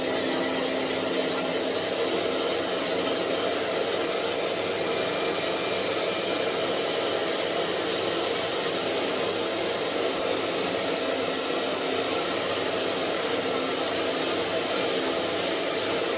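Hair dryer running steadily on high, a constant rush of blown air with a faint motor hum underneath.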